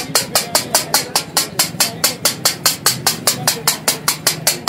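Flat steel chopper blade striking a large iron tawa griddle in a fast, steady rhythm of about five sharp clacks a second, chopping chicken keema on the griddle.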